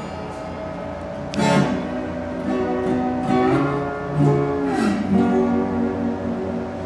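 Acoustic lap-slide guitar music in Weissenborn style: chords plucked and strummed several times, with notes that glide up and down in pitch under the slide.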